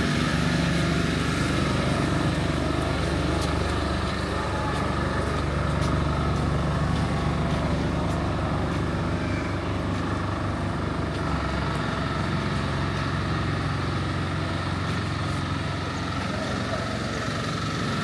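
A heavy vehicle's engine running steadily, a low drone that drops back about eleven and a half seconds in, over general street noise.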